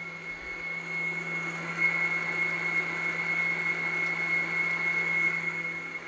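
Electric stand mixer running steadily, beating butter, sugar and eggs in its metal bowl, with a steady high-pitched motor whine over a low hum.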